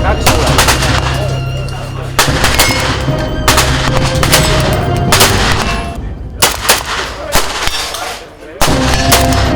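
Loud, repeated gunfire-like bangs at irregular intervals, about a dozen over the stretch, over a steady low hum and background music.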